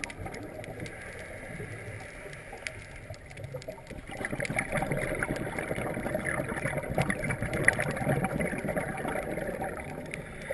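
Underwater sound from a camera in a housing: the scuba diver's regulator exhaust bubbles in a crackling, bubbling burst from about four seconds in to near the end, over a muffled background with scattered faint clicks.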